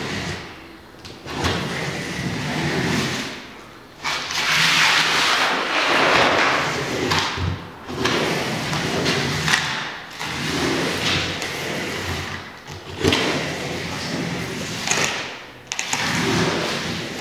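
A handheld iron pushed and dragged across a sheet of paper on the floor, scraping and rustling in a series of strokes a few seconds each, the loudest around four to seven seconds in.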